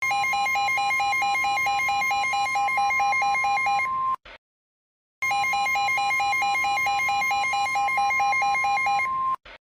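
Electronic emergency alert tone: a steady high tone over a lower tone that pulses rapidly, in two bursts of about four seconds each with about a second of silence between them. At the end of each burst the steady tone hangs on for a moment after the pulsing stops, then cuts off with a short blip.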